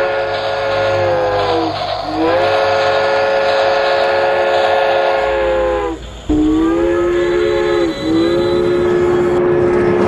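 A train whistle blowing several long blasts in a chord of notes, each blast sagging in pitch as it cuts off.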